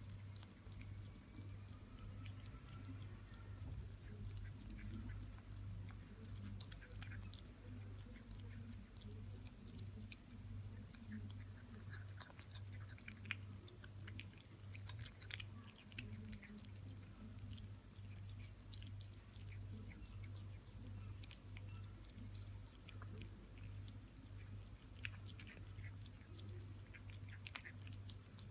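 A kitten chewing and biting raw minced meat: faint, irregular small clicks of eating, over a low steady hum.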